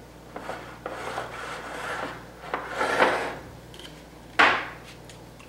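Hands rubbing and pressing pie crust dough against the sides of a small bowl make soft scraping and rustling noises. A stronger scrape comes about three seconds in, and a short, loud scrape follows a little after four seconds as a glass bowl is moved on the tiled counter.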